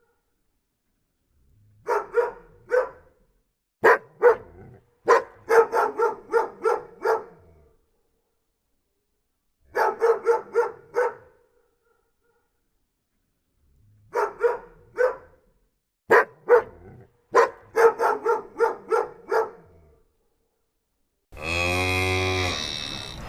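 A dog barking in groups of short, same-pitched barks with silent gaps between the groups. About 21 seconds in, a cow starts a long moo.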